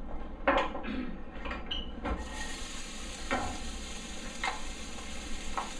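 Sliced white onion going into hot oil in a stainless steel skillet: a few knocks, then steady sizzling from about two seconds in, with a few stirring strokes in the pan. It is the onion starting to fry for a sauté.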